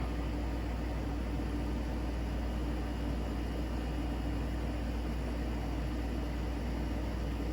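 Steady low hum and hiss from a TV and VCR playing the blank start of a VHS tape.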